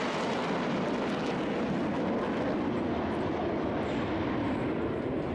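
Jet noise from a formation of Korean T-50B jet trainers flying past, a steady rush that slides lower in pitch as the formation passes.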